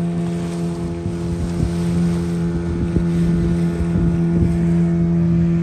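Fishing boat's engine running steadily under way, a constant drone, with wind buffeting the microphone.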